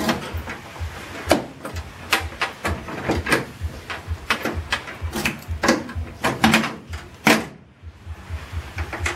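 Metallic clicks and clacks of a 1969 XW Ford Falcon's door lock being worked with the key and its chrome push-button door handle being pressed: an irregular run of clicks, the loudest a little after seven seconds in.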